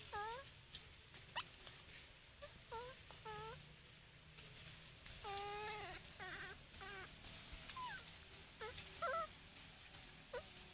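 Infant macaque crying with short, high, wavering whimpering calls repeated again and again, with one longer drawn-out call about halfway through: the calls of a baby monkey on its own. A single sharp click comes early on.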